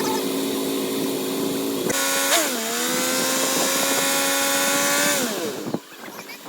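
A motor running at a steady pitch. Its speed jumps about two seconds in, holds, then winds down and stops near the end.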